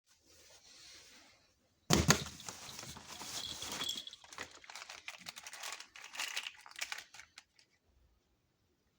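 Toy packaging crinkling and being torn open. A faint rustle comes first, then about two seconds in a sudden loud tear, followed by dense crackling and clicks that thin out into scattered crinkles and stop after about seven seconds.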